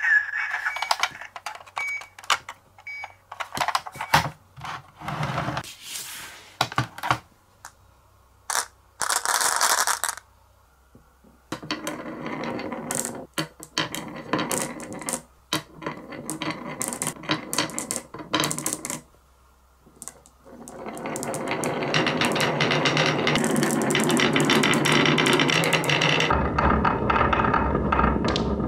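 Glass marbles rolling and clacking down a wooden wave-shaped marble-run slope: scattered clicks and knocks at first, building about two-thirds of the way through into a dense, continuous rattle as many marbles pour down together.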